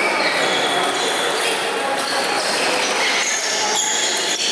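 Table tennis balls being struck and bouncing at several tables across a large sports hall, a steady clatter that carries through.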